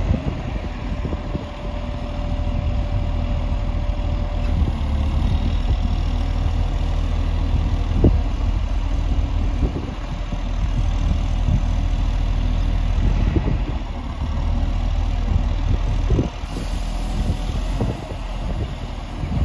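Cummins ISM 400 turbo-diesel of a Western Star 4866S crane truck idling steadily. A sharp click comes about eight seconds in.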